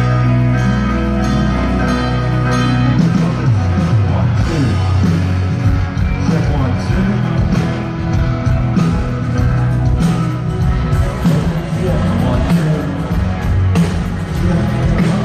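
Rock band playing, led by electric guitar over bass and drums; sustained low notes give way to busier playing about three seconds in.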